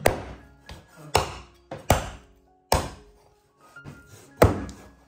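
Heavy blade chopping through goat meat and bone on a chopping board: about five hard, sharp blows at irregular intervals with lighter knocks between, over background music.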